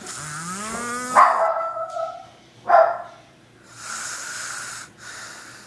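A man snoring loudly in his sleep: a pitched, rising rasp on the in-breath that breaks into two short, loud snorts about a second and a half apart, followed by breathy hissing breaths.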